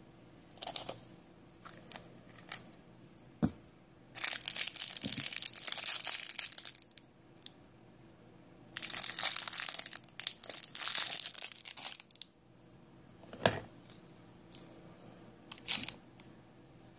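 Clear plastic toy wrapper crinkling in two long spells of several seconds each as it is handled and torn open, with a few short taps and clicks between them.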